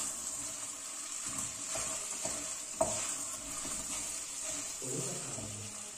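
Rice and vermicelli toasting in a stainless steel pot on a gas stove, sizzling steadily while a spoon stirs and scrapes through it. A sharp clink of the spoon against the pot comes a little before three seconds in.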